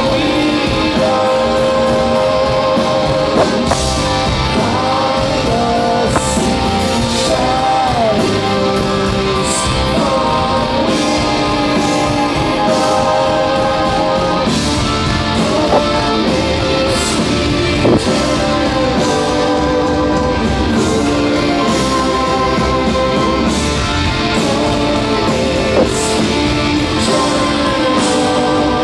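Live heavy-rock band playing loudly, with electric guitars and a male lead singer. Heard from within the crowd.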